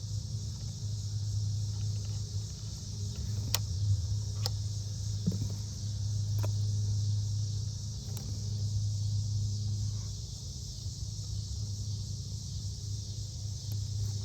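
Steady low hum with a constant hiss, and a few sharp light clicks at intervals, about three and a half, four and a half and six and a half seconds in.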